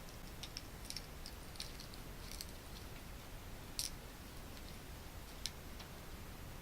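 Faint scattered clicks and ticks from handling electrical wires and wire-joining parts by hand, with two sharper clicks about four and five and a half seconds in.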